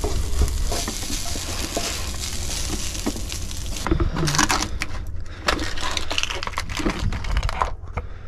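Rice sizzling in a hot frying pan while a wooden spoon stirs and scrapes through it. About four seconds in this gives way to a spatula scraping and clicking against a foil tray.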